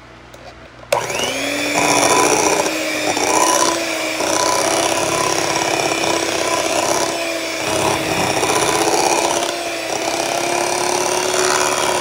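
Electric hand mixer switched on about a second in, its motor spinning up and then running steadily as the beaters churn a thick, lumpy cream-cheese batter in a glass bowl.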